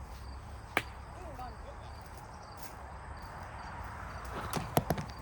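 Sharp knocks of a plastic wiffle ball hitting a hard surface: one about a second in, then near the end a whoosh and a quick cluster of knocks and clicks, the pitch taken for a ball that brings a full count. Faint voices underneath.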